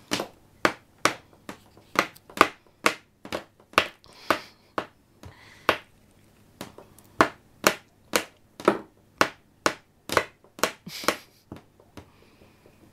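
An unplugged electrical cord being slapped repeatedly against a hardwood floor by a baby. The sharp whacks come about two a second and stop shortly before the end.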